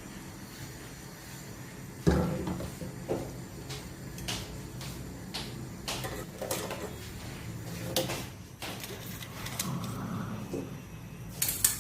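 Kitchen handling noise: a loud knock about two seconds in, then scattered knocks and clicks of cookware and utensils being moved, over a low steady hum.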